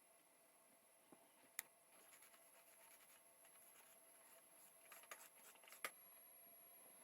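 Very faint small clicks and taps from handling small parts at a workbench: one click about a second and a half in, then a quick run of clicks near the end, over a faint steady hum.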